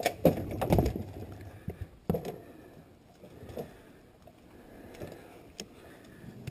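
Thumps, knocks and scraping as a dead deer's body and antlers are hauled onto a pickup truck's bed. They are loudest in the first second, with another sharp knock about two seconds in, then a few lighter knocks.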